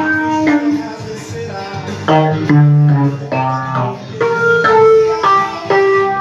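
Ensoniq TS-12 keyboard played through a Zoom MS-70CDR effects pedal: a melody of held notes, each lasting about half a second to a second, over a low bass line.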